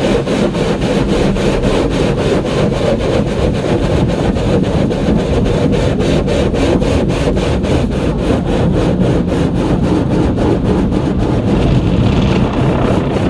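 Rotating cloth brushes of a WashTec WS240 tunnel car wash scrubbing over the foam-covered car, heard from inside the cabin: a steady rubbing noise with a regular beat of about four strokes a second as the brush strips slap the glass and body.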